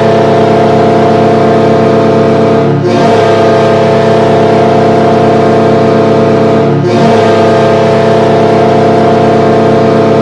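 Carolina Hurricanes arena goal horn blowing loud, in long blasts of about four seconds each, with short breaks about three and seven seconds in; the last blast fades away near the end.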